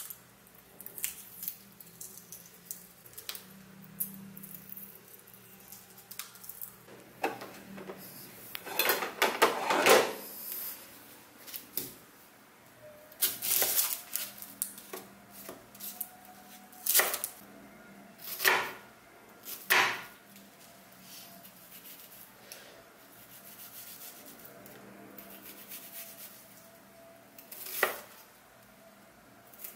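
Kitchen prep handling: a boiled egg's shell being peeled off, then a chef's knife slicing a red onion on a wooden cutting board, with single knocks of the blade on the board every second or two.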